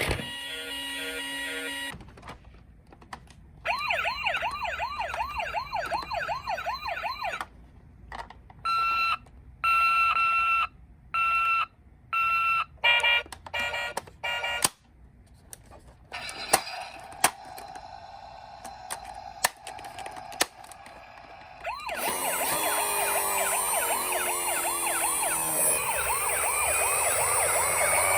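Electronic siren sounds from several toy ambulances and police cars played one after another. First comes a fast wavering wail, then a run of short on-off beeping tones, then a louder wavering wail from near the end, with a few sharp clicks in between.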